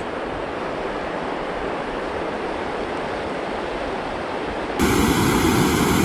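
Steady rushing of a mountain stream. About five seconds in it cuts abruptly to a louder, fuller rush with a faint steady whine over it.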